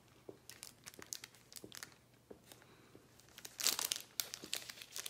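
A person biting and chewing a soft chocolate chip cookie: a run of small sharp clicks and crackles, sparse at first and thicker about three and a half seconds in.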